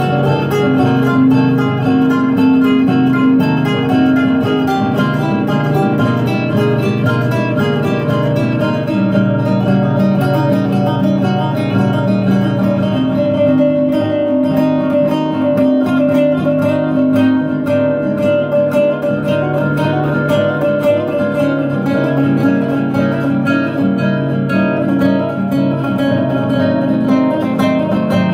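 Nylon-string classical guitar played fingerstyle: a fast, continuous stream of plucked notes.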